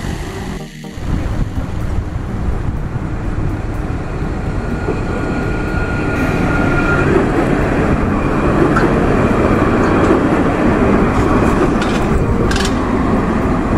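Alstom Citadis 402 tram running past close by on its rails: a steady noise of wheels and traction equipment that grows louder through the middle. A thin steady whine sounds for a couple of seconds partway through, and a few sharp clicks come near the end.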